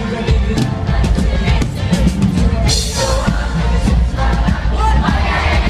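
Live pop-rock band playing loud, with drums, bass guitar and singing.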